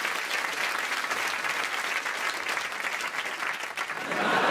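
Studio audience applauding steadily, getting louder near the end.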